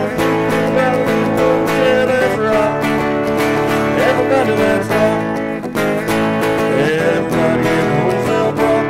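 Austin Telecaster electric guitar being played through an amp: strummed chords mixed with single-note lines, some notes bent in pitch.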